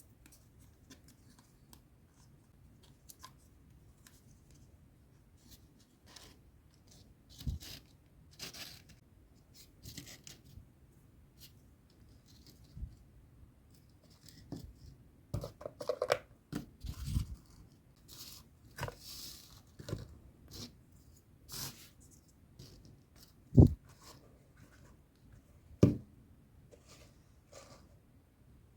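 Hands unpacking small plastic toy accessories and their packaging: scattered rustles and clicks, with two sharp knocks about two-thirds of the way through.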